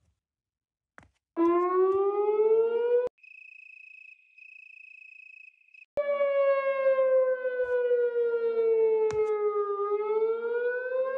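Outdoor tornado warning siren wailing. Its pitch rises, then cuts off abruptly. A faint steady high tone follows. Then the siren starts again loud, falls slowly in pitch and rises again near the end.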